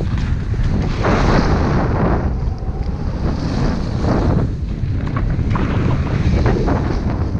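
Wind rushing over the camera microphone of a downhill skier, mixed with the hiss of skis carving on groomed snow, swelling and easing about every two seconds.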